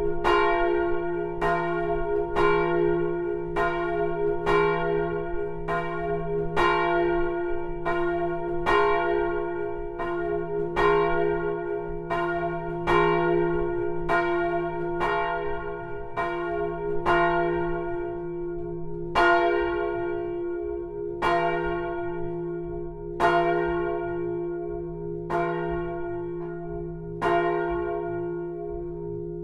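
Swinging bronze church bell cast in 1515, 820 kg and sounding F, its clapper striking over a steady low hum and ringing tones. The strikes come quickly at first, then thin out to about one every two seconds and grow weaker near the end.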